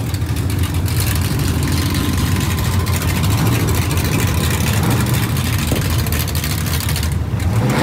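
Twin-turbo 5.0 Coyote V8 of a 2019 Ford Mustang GT idling and rolling at low speed through a Corsa Xtreme catback exhaust, with a loud, rough, steady exhaust note.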